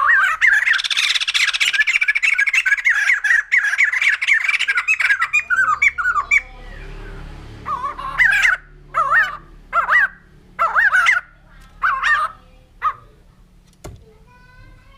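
White-crested laughingthrush calling: a loud, fast run of repeated notes for about six seconds, then after a short pause a string of about eight single loud calls, each under a second apart, that stops about two seconds before the end.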